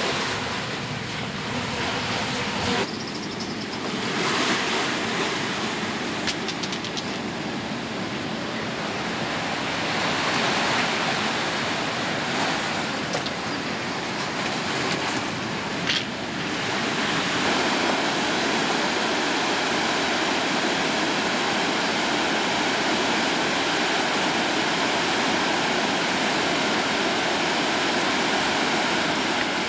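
Steady rushing of river rapids, whitewater pouring between rocks, shifting in level a few times, with a short click about 16 seconds in.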